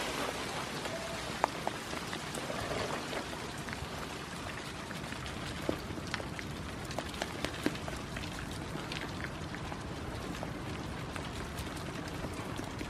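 Steady rain, with sharp single drops ticking close by at irregular moments.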